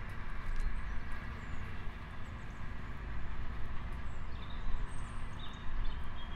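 Steady outdoor background noise: a low rumble with an even hiss, and a few faint high chirps about two-thirds of the way through.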